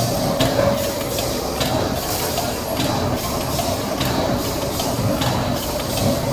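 Vertical form-fill-seal auger filler pouch packing machine running, with a steady run of mechanical clacks about twice a second over a steady hum.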